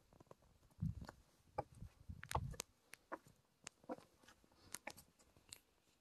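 Footsteps picking over loose basalt boulders: faint, scattered clicks and knocks of shoe on stone and rock on rock, with two duller thuds about a second in and near the middle.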